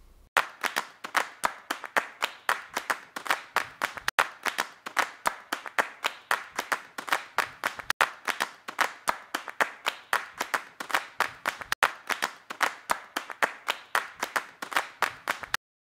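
Rhythmic hand claps in a steady beat of about four a second, with a heavier accent every few seconds, cutting off suddenly near the end.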